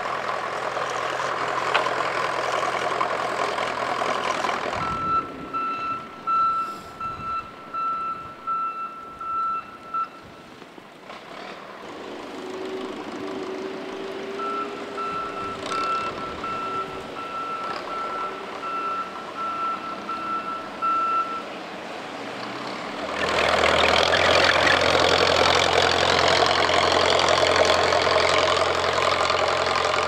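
A small tracked snow plow's engine running loudly, then fading back while a vehicle's reversing alarm beeps steadily at about two beeps a second in two stretches; the engine comes in loud again for the last seven seconds.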